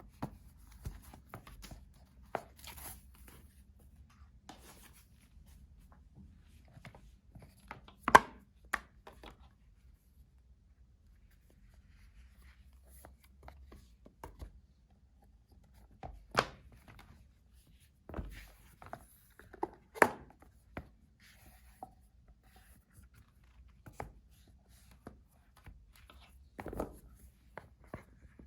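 Sparse taps, clicks and knocks of small hard objects being handled and set down on a table, with a few light rustles; the sharpest knocks come about 8, 16 and 20 seconds in.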